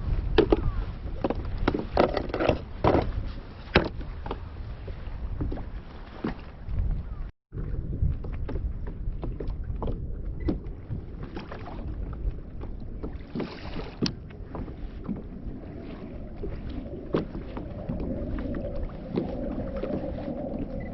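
Wind and water noise around a fishing kayak at sea, with irregular small knocks and clicks of gear against the hull. A faint steady hum comes in near the end.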